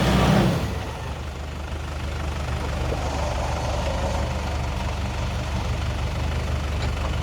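A 4x4 vehicle's engine running; its louder note drops about half a second in to a steady idle.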